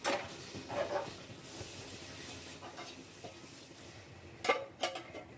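A large metal kadhai is set down on a gas stove's pan support with a clank and settles with another clink about a second later. Near the end its metal lid goes on with two knocks about half a second apart.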